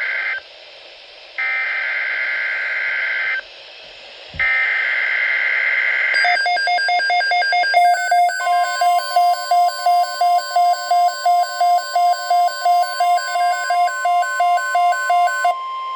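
NOAA Weather Radio Specific Area Message Encoding (SAME) header: three harsh two-tone digital data bursts, each about two seconds long and a second apart, announcing a Tornado Watch. Then a rapidly pulsing electronic alarm beeps about twice a second, and about two seconds later the steady single-pitch weather radio warning alarm tone joins it.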